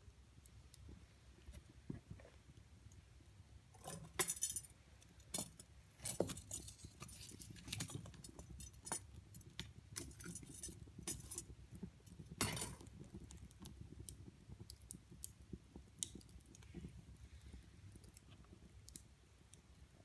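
Metal fire tongs clinking and knocking against burning logs as the wood fire is rearranged, a run of sharp clinks with the loudest around four seconds in and again past twelve seconds, over faint crackling from the fire.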